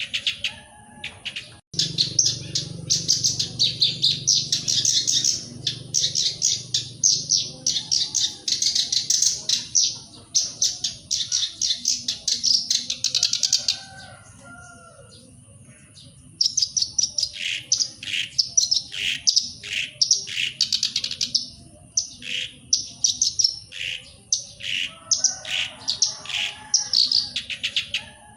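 Black-browed reed warbler singing: long runs of fast, scratchy, chattering notes, broken by a pause of about two seconds near the middle. A low hum runs under the first part.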